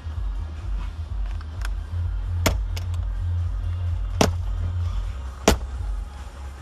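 Background music with a heavy bass beat, cut by three sharp clicks or knocks in the middle and later part, the last one the loudest.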